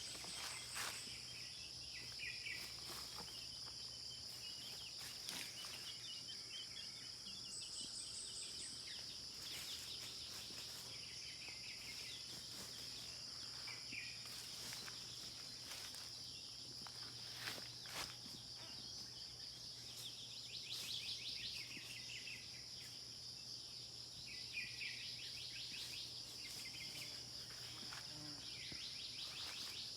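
Rural dawn ambience: a steady high-pitched insect drone, with birds chirping now and then and a few scattered clicks.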